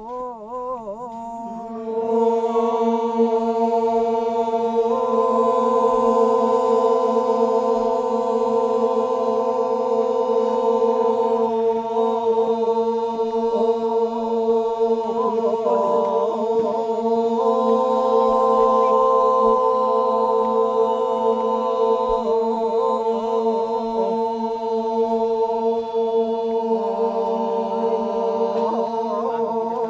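Group of men chanting the Toraja Manimbong ritual song in long, sustained held notes sung together. A softer wavering voice comes first, the full group enters about two seconds in, and the pitches step to new held notes every few seconds.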